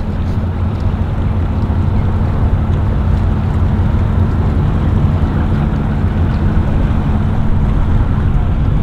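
Boat engine idling steadily: an even, low hum.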